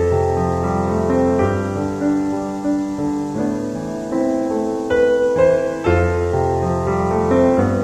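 Slow, calm piano music: sustained chords with new notes struck every second or two, and deep bass notes coming in at the start and again about six seconds in.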